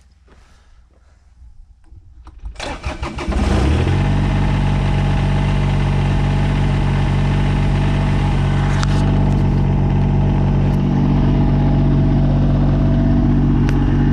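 2003 Kubota BX22 tractor's three-cylinder diesel engine cranked by the starter, catching about a second later, then idling steadily. A few faint clicks come first.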